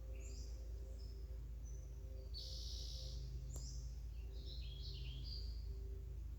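Wild birds chirping and calling in short high notes, with one longer call a little past two seconds in and a quick run of calls near the end, over a steady low outdoor rumble. A single sharp click comes about halfway through.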